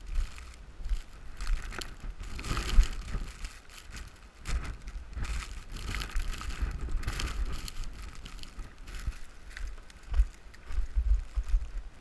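Blizzard wind gusting, buffeting the microphone with irregular low thumps, and a rushing hiss of wind-driven snow that swells in gusts about two seconds in and again around six seconds.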